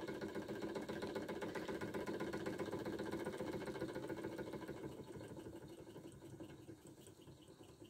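Georges Carette 1911 hot air engine running, a fast, even mechanical clatter from its piston and linkage. It gets steadily quieter from about five seconds in.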